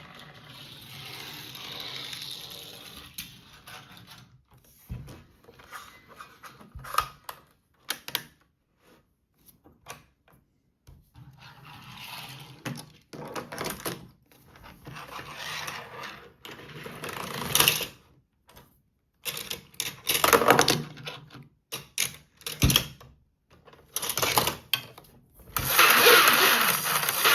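Plastic toy playset being handled and worked: irregular clicks, rattles and short scraping bursts with quiet gaps between them. Near the end, loud music begins.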